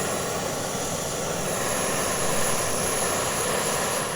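Ozark Trail isobutane camp stove burner lit and running at full flame: a steady rush of burning gas.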